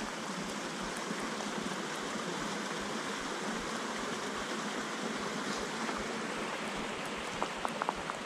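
Mountain creek water rushing steadily, with a few footsteps crunching on a gravel trail near the end.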